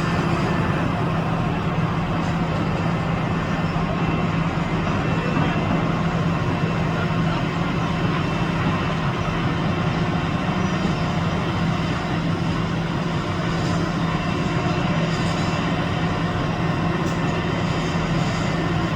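Construction machinery running steadily, a continuous engine drone with a strong low hum and no breaks.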